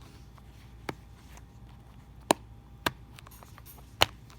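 Silicone pop-it fidget toy being pressed, its bubbles popping with sharp clicks, four times at uneven gaps.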